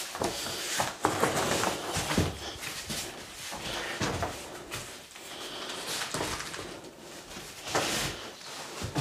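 Rustling and scattered soft knocks of a Bluetti PV350 folding solar panel being pulled out of its carry case and unfolded by hand.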